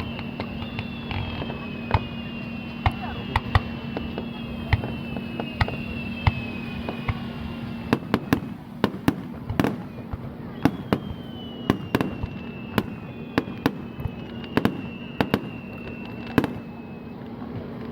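Fireworks display going off: a rapid, irregular string of sharp bangs, with several falling whistles overlapping in the first half and again from about ten seconds in. A steady low hum sits underneath, dropping away about halfway through.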